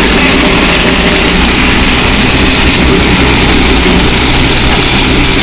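Go-kart engine running steadily while the kart is driven over dirt, loud and unchanging, with a hiss over it.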